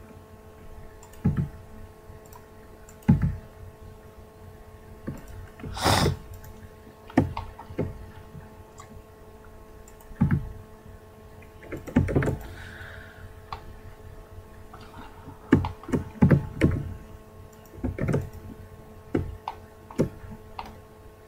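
Computer keyboard keys and mouse buttons clicking and thumping at irregular intervals, a dozen or so strokes, the sharpest about six seconds in, over a faint steady electrical hum.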